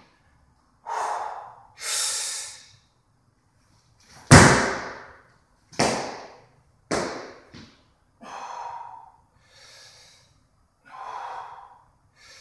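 A weightlifter's heavy, forceful breathing during a jerk: about ten separate sharp breaths and exhales. The loudest comes about four seconds in, a hard blast of breath as the barbell is driven overhead.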